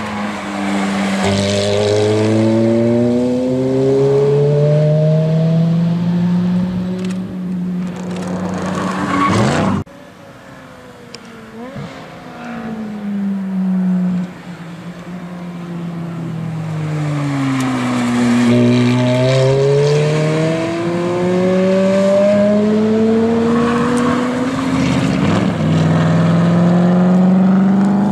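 Ferrari F430 F1 Spider's V8 engine accelerating hard on a race track, its pitch climbing as it revs, falling as it slows, then climbing again. The sound cuts off abruptly about ten seconds in, then builds back up over the next several seconds.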